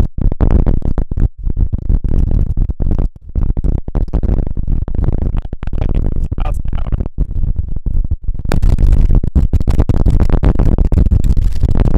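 Strong mountain-top wind buffeting the camera's microphone in irregular gusts, a deep rumbling noise with brief dropouts. About 8.5 seconds in it changes to a steadier, hissier rush of wind.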